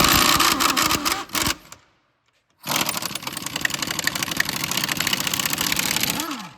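Impact gun hammering on a seized, rust-bound strut-to-knuckle bolt in two long bursts with a short pause between, spinning it to clear the rust so the bolt will slide out of the knuckle. The motor winds down with a falling pitch as the second burst ends.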